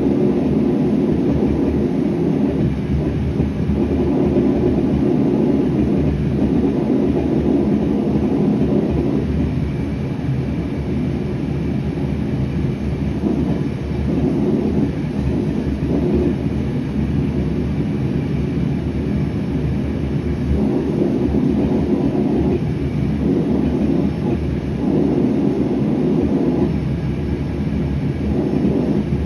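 Gas forge burner running with a steady low rumble.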